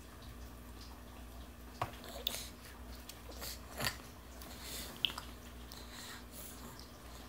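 Toddler chewing finger food and sucking his fingers: faint wet mouth smacks and a few short clicks, over a low steady hum.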